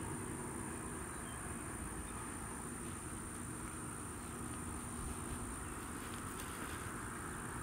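Boeing CH-47 Chinook idling on the ground with its rotors turning slowly, heard from a distance: a steady hum with a constant high-pitched whine.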